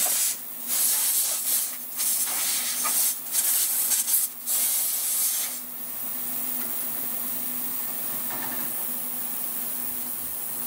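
Compressed-air blow gun blowing cleaning solution off freshly ultrasonically cleaned Mac 10 parts to dry them: about five short air blasts over the first half, then the air stops, leaving a steady low hum.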